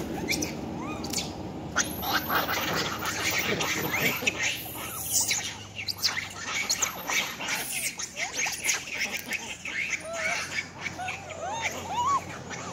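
A troop of long-tailed macaques calling, with many short squeals and squawks overlapping. There are a few short rising-and-falling chirps near the end.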